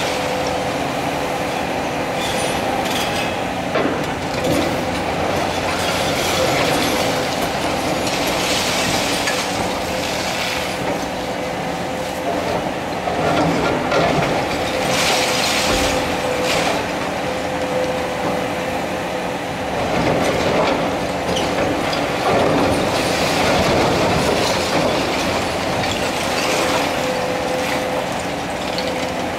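Cat 336 Next Generation hydraulic excavator at work on demolition: the machine runs steadily with a constant whine, while its demolition attachment breaks concrete and masonry, bringing repeated bursts of crunching, scraping and falling rubble every few seconds.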